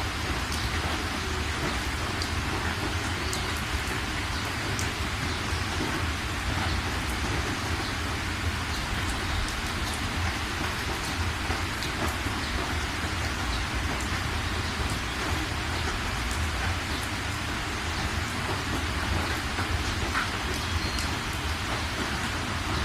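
Steady rain falling, an even hiss of rainfall with scattered individual drop ticks over a constant low rumble.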